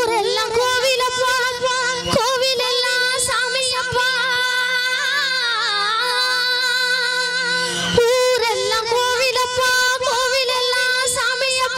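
A woman sings a Tamil folk song through a handheld microphone, holding long high notes with a wavering vibrato. She pauses for breath about eight seconds in and then takes up another held note.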